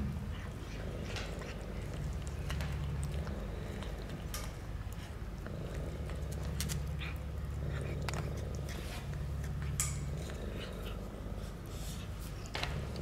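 Domestic cat purring steadily while it eats, with wet chewing and lip-smacking clicks over the low purr.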